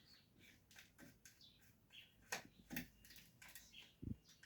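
Near silence, with a few faint scattered clicks and short high chirps.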